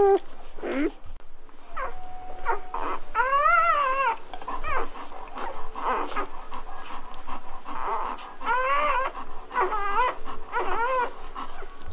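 Newborn golden retriever puppies whimpering in a series of high, wavering cries that rise and fall in pitch, with short gaps between them and the longest lasting about a second.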